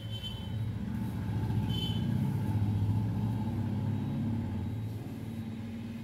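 Low rumble of a passing road vehicle, swelling over the first few seconds and fading near the end.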